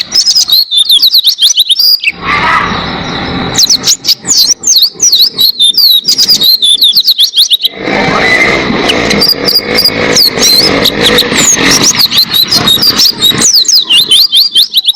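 White-eye (pleci) singing in long, fast runs of high, sliding chirps, with short breaks between runs.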